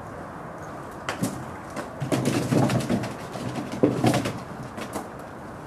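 Low animal vocal sounds mixed with scuffling and light knocks, starting about two seconds in and fading near the end.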